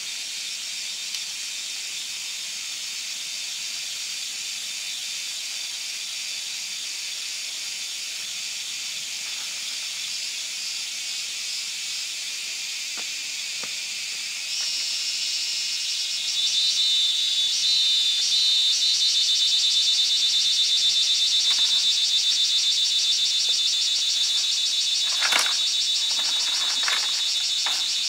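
Forest insects droning, a steady high-pitched buzzing hiss. About halfway through, a louder, rapidly pulsing insect call joins in and holds. There are a few short knocks near the end.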